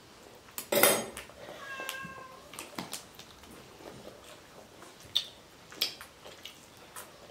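A short, loud high-pitched cry, then a drawn-out high mewing tone, followed by scattered light clinks of spoons against metal plates.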